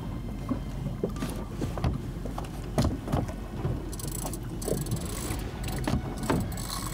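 Small boat's single engine running steadily with water washing against the hull, and a few sharp knocks and thumps on the boat.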